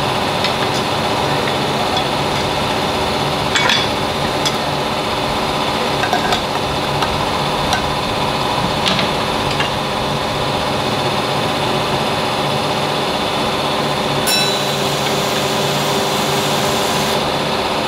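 Sheet-fed printing press running: a steady mechanical hum with a few sharp clicks and knocks scattered through it.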